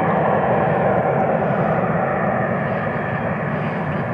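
Twin Williams FJ44-4A turbofan engines of a Pilatus PC-24 business jet climbing away after take-off: a steady, even jet noise that slowly fades as the aircraft recedes.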